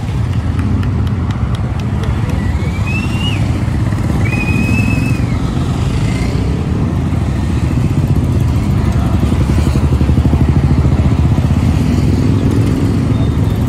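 A large group of motorcycle engines running together as the column rides off at low speed, making a dense, steady rumble. Two short high-pitched tones rise and fall about three and four and a half seconds in.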